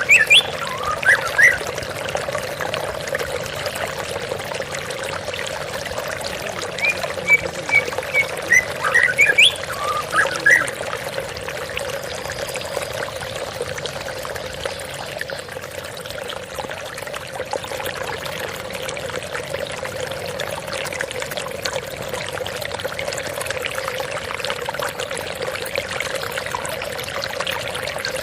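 Steady splashing and trickling of running water from a small waterfall or stream. A songbird gives a few short chirps and whistles within the first ten seconds or so, then the water runs on alone.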